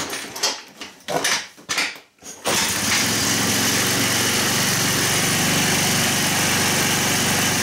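Daymak 150cc Chinese ATV engine being kickstarted: several kicks that don't catch, then about two and a half seconds in it fires and keeps running steadily. It runs at an idle set too high on its freshly cleaned carburetor.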